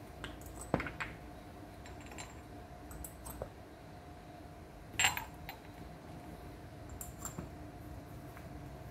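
Glass cupping cups clinking against each other as they are set onto a bare back during fire cupping: a few scattered light clinks, the sharpest about five seconds in, over a faint steady hum.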